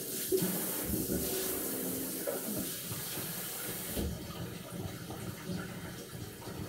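Water running from a tap, an even splashing hiss; the high part of the hiss stops suddenly about four seconds in.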